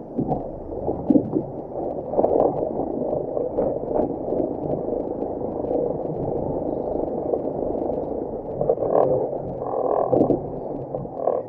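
Land Rover Defender 110 crawling up rock steps in low range, its engine running at low revs and heard from inside the cabin. Irregular knocks and clunks come through as the vehicle works over the rock.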